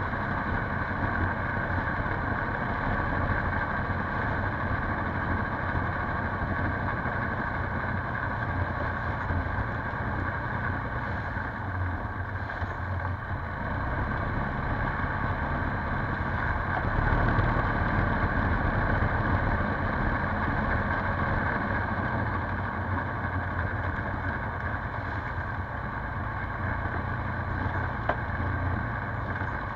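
Polaris Sportsman 570 ATV's single-cylinder engine running at a steady speed, getting a little louder a little past halfway.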